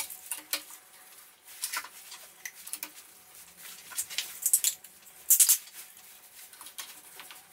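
Plastic push-fit fittings, PEX pipe and pipe inserts being handled and pushed together: scattered light clicks, taps and small rattles, with a louder cluster of clicks about five seconds in.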